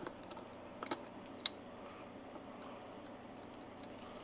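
A few light metallic clicks from an adjustable wrench being set and fitted onto the tach drive of a Harley-Davidson Ironhead Sportster engine case, ahead of loosening it.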